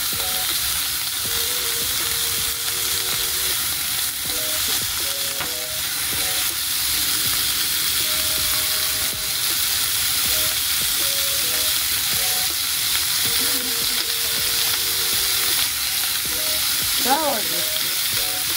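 Wagyu beef slices sizzling in a hot frying pan, a steady even hiss.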